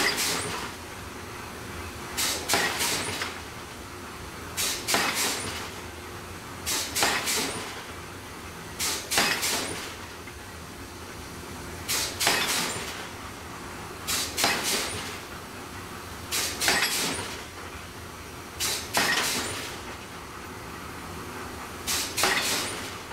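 Forging hammer striking a hot metal ring on a mandrel during open-die ring forging, in clusters of two or three sharp blows about every two seconds, over a steady machine hum.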